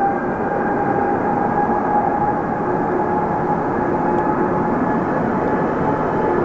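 Airliner's engines running steadily during departure: a continuous rush of noise carrying a few steady whining tones.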